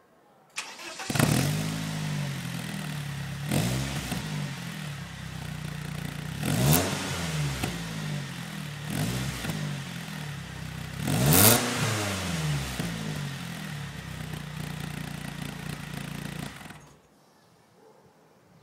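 BMW Z3 1.9i 16V's four-cylinder engine through a Hamann quad-tip aftermarket exhaust, starting up about a second in. It is blipped in a series of short revs, the highest about eleven seconds in, and idles steadily between them. It cuts off suddenly near the end.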